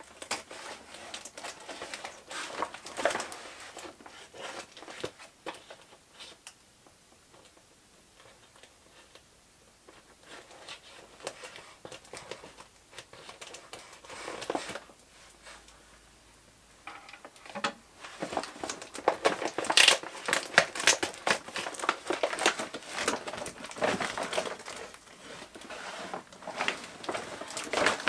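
Plastic courier satchel crinkling and rustling as it is cut open and handled. It goes quieter for several seconds in the middle, then gets louder and busier for the last ten seconds or so.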